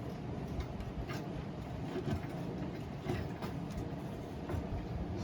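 Light clicks and knocks of parts being handled, about one a second, over a steady background hum.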